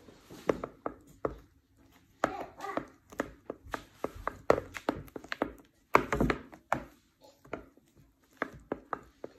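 A spatula folding melted chocolate into whipped cream, knocking and scraping against the mixing bowl in irregular taps, loudest about six seconds in.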